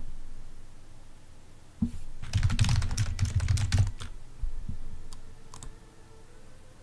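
Typing on a computer keyboard: a quick run of keystrokes about two seconds in, lasting under two seconds, followed by a couple of single key presses.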